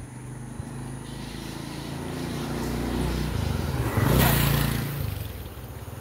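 Motorcycle engine running as it approaches, growing louder and passing close about four seconds in, then easing off.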